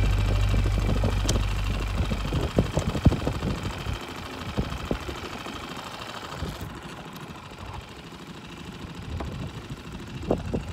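Small outboard motor idling with a steady low hum that dies away about two seconds in as it is shut off, followed by a few knocks and clunks, then wind and water noise.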